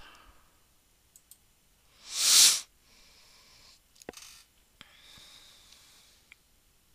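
One loud breath close to the microphone, about two seconds in, with a few faint mouse clicks around it.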